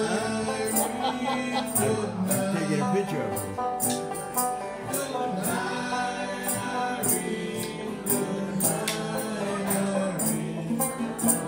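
Small acoustic band playing an instrumental passage: a strummed banjo carrying the tune over a steady, jingling percussion beat about twice a second.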